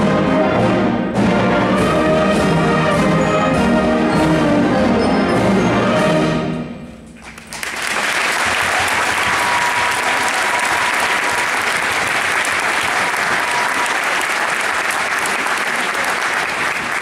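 Large school concert band of woodwinds and brass playing, ending on a chord that dies away about seven seconds in; a large audience then breaks into steady applause.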